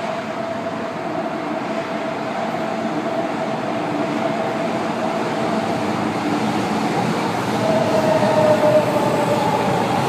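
São Paulo Metro Line 2 train running through the station, a steady rushing noise with a high whine, growing louder; the whine is loudest and sags slightly in pitch about eight seconds in.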